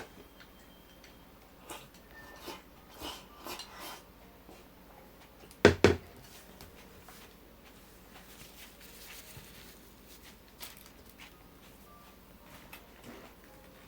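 Tableware being handled: a few light clinks and clatters, then two loud knocks close together about six seconds in, followed by a few faint taps.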